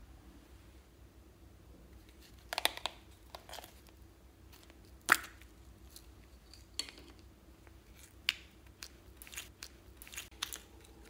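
Slime being pressed out of soft plastic bow-shaped containers into a glass dish: scattered sticky pops, crackles and plastic clicks, with one sharp click about five seconds in.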